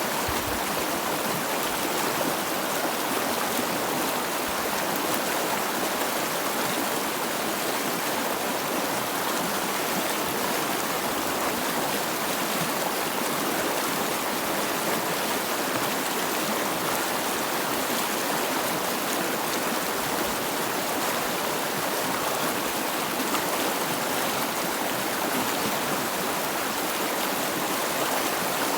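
Stream water running over rocks, a steady rushing and babbling with no breaks.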